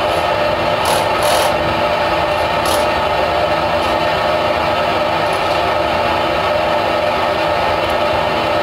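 Steady machine hum that holds at one level throughout, with a few short sharp clicks in the first three seconds.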